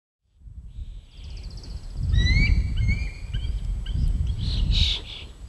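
Wild birds calling outdoors: a quick high trill, then a run of short rising whistled notes, and louder calls near the end. All of it sits over a strong low rumbling noise.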